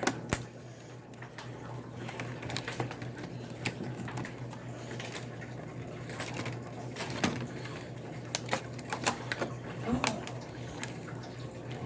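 Scattered small clicks and taps from handling an iBook G4 laptop's parts and tiny screws during reassembly, over a steady low hum.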